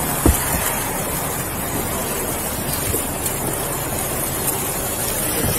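Steady rushing background noise, with a single faint click about a quarter second in.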